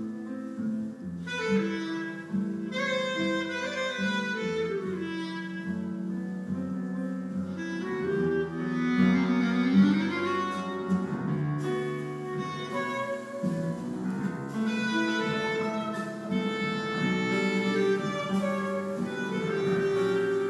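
Live jazz ensemble with saxophones, grand piano and drum kit playing a piece, heard from the audience in a concert hall. Several wind lines hold and slide between notes over the rhythm section.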